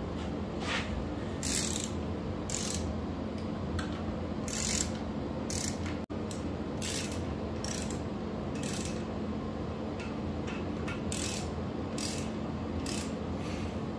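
A hand socket ratchet clicking in a dozen or so short strokes, with a brief pause near the two-thirds mark, as it runs down the bolts of a timing chain tensioner on a VQ37VHR cylinder head.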